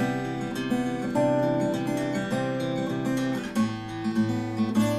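Acoustic guitar strummed, playing a song's opening chords, with a change to a lower bass chord about three and a half seconds in.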